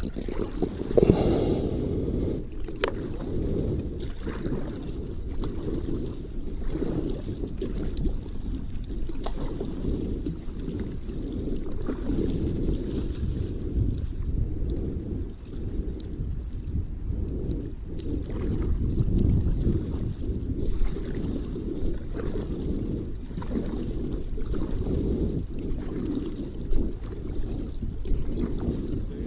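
Water sloshing and gurgling around a kayak on a lake, with a deep wind rumble on the microphone and small irregular splashes.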